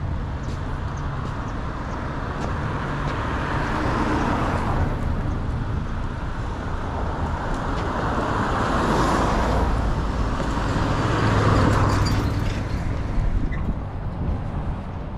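Cars passing by. Their tyre and engine noise swells and fades as each goes past, about 4, 9 and 12 seconds in, the last the loudest.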